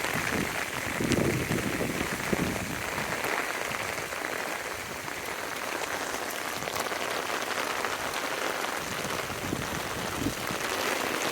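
Steady rain falling on garden plants, an even hiss with scattered individual drops ticking, and a couple of low bumps about a second and two and a half seconds in.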